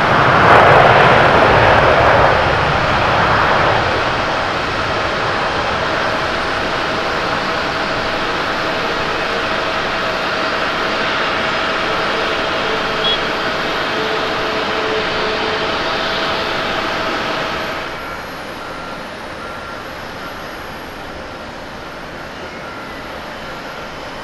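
Jet engine noise from an ANA Boeing 787-8 Dreamliner during its landing rollout on the runway, loudest in the first few seconds and then steady. About 18 s in, the sound drops suddenly to a quieter, steady hum of a Boeing 777-300ER's engines on approach.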